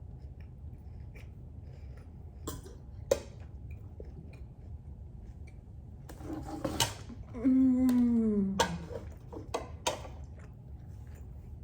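Eating sounds: a few light clicks of cutlery against dishes, and about two-thirds of the way through a short vocal sound that falls in pitch over about a second, over a steady low hum.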